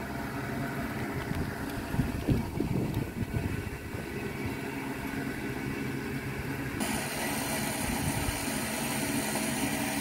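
Off-road 4x4 engine idling steadily, with a few brief knocks about two seconds in and a hiss coming up about seven seconds in.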